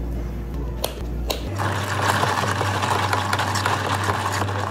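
Ice clattering in a plastic cup as a long spoon stirs an iced drink. Two single clinks come first, then a dense, fast clatter starts about a second and a half in and cuts off at the end.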